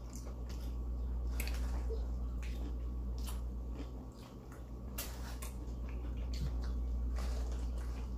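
A person eating close to the microphone: chewing peppers and biting into a cheesesteak sandwich, with scattered wet mouth clicks and smacks. A steady low hum runs underneath.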